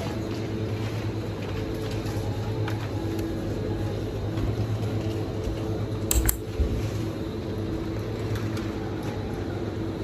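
Supermarket background: a steady low hum from the refrigerated display cases and ventilation, with a few faint clicks. About six seconds in, a plastic smoothie bottle gives a brief knock as it is lifted off the chilled shelf.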